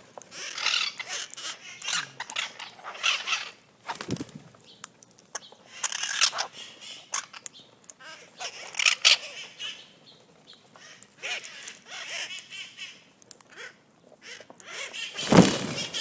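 A flock of red-masked parakeets (cherry-headed conures) squawking in harsh, screechy bursts every couple of seconds, with a loud rush of wings near the end as the birds fly off.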